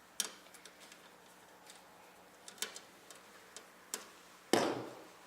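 Screws being undone from a PC case's metal vertical graphics-card bracket: a few scattered small metal clicks, then a louder scraping clatter lasting about half a second, about four and a half seconds in.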